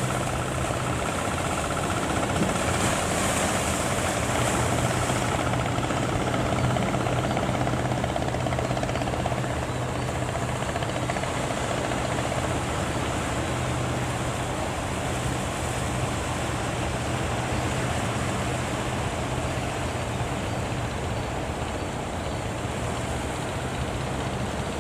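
Fishing boat engine running steadily with a low hum, under the wash of waves and wind noise.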